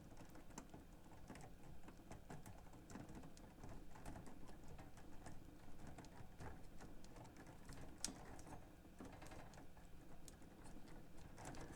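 Faint scattered small clicks and light rubbing as old grease is cleaned off the cassette deck's transport parts, with one sharper click about eight seconds in.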